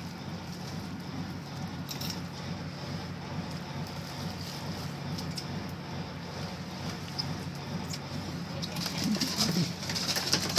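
Sportfishing boat's engine idling, a steady low hum, with wind and water noise over it.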